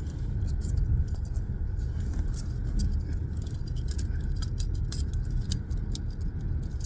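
Small metal clicks and jingling of handcuffs being snapped on, over the steady low road rumble of a car cabin.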